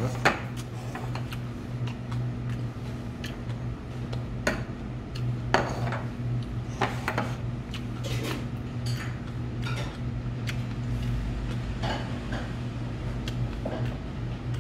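Eating at a table: chopsticks and dishes clicking and clinking now and then, with brief chewing and mouth noises, over a steady low hum.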